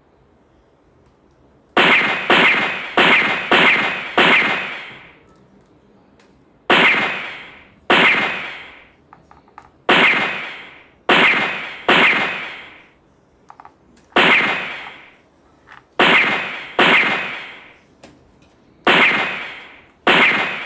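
Toy gun gunshot sound effects fired again and again: about sixteen sharp bangs, each trailing off over most of a second, in quick runs of up to five shots with short pauses between.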